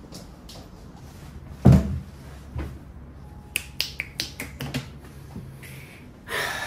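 A single heavy thump about a second and a half in, then a quick run of sharp finger snaps a couple of seconds later.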